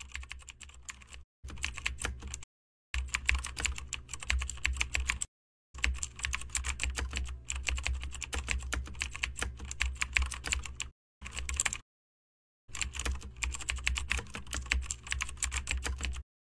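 Computer keyboard typing: several runs of rapid key clicks separated by brief silent pauses, stopping just before the end.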